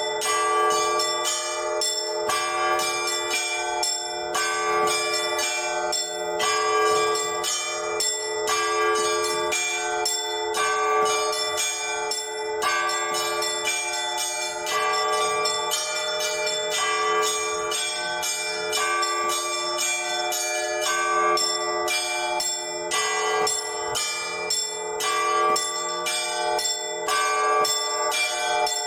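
Orthodox church bells rung by one bell-ringer: a continuous peal of quick, rhythmic strikes on the smaller bells over the lingering ring of the larger ones.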